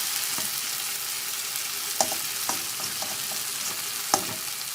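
Fish frying in a pan with sautéed tomato, sizzling steadily. A spatula knocks and scrapes against the pan a few times as the pieces are mixed.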